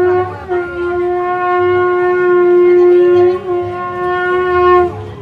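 A wind horn blown in one long, loud, steady held note of about five seconds, with a slight wobble in the middle, cutting off sharply near the end.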